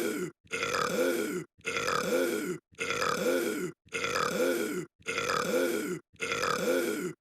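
The same burp repeats over and over, about once a second. Each has a pitch that rises and then falls away, and each is cut off by a brief dead-silent gap, which suggests a single burp recording looped end to end.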